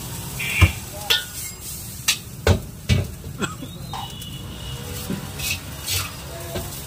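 Steel ladle knocking and scraping against a wok while fried rice is served out: a string of sharp metal clinks, irregular and roughly a second apart, over a low steady background rumble.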